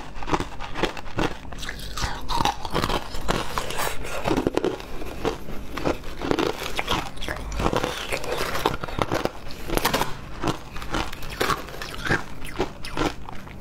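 Shaved ice being bitten and chewed, a dense irregular run of crisp crunches.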